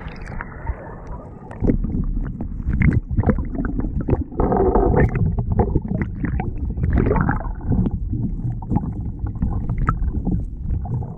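Muffled rumbling, sloshing and knocking of water heard through a GoPro held under murky river water. It jumps louder about two seconds in and stays dense with low knocks.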